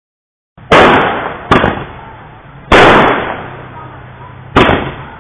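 Four loud Diwali firecracker bangs, unevenly spaced over about four seconds, each followed by a fading echo.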